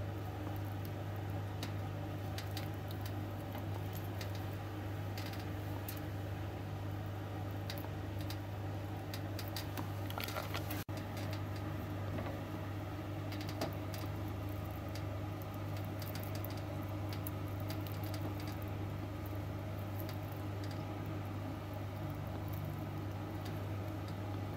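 Steady low hum with scattered small clicks and ticks of metal tweezers picking small bones out of a dried herring fillet.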